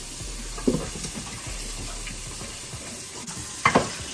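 Kitchen faucet running into a pot in the sink while small red potatoes are rinsed and rubbed by hand, a steady splashing. A knock against the pot just under a second in and a louder clatter near the end.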